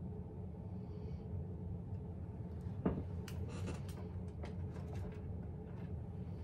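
Steady low room hum, with a single knock about three seconds in followed by a couple of seconds of light clicks and rustling.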